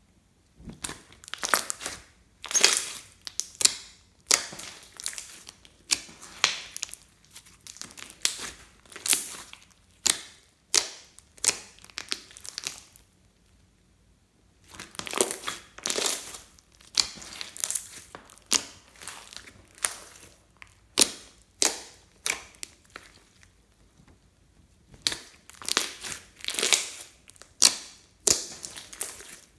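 Clear glitter slime mixed with small beads being pressed and stretched by hand, giving a run of sticky crackling pops about once a second, with two short pauses.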